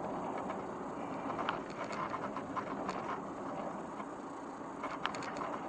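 Road and engine noise inside a moving vehicle's cabin, steady, with a few light clicks or rattles.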